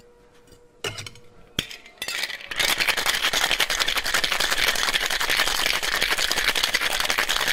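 Tin-on-glass Boston cocktail shaker: one or two sharp clicks as the metal tin is seated on the mixing glass, then, from about two seconds in, ice rattling hard and fast inside as the shaker is shaken to chill a creamy tequila cocktail.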